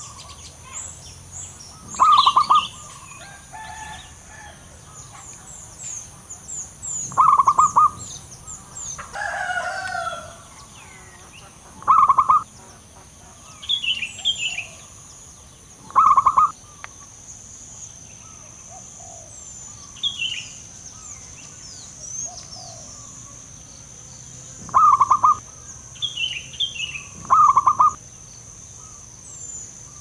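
Male zebra dove cooing: a loud, rapid, stuttering trill of coos, repeated six times at intervals of a few seconds. Fainter high chirps from other small birds come in between, over a steady high whine.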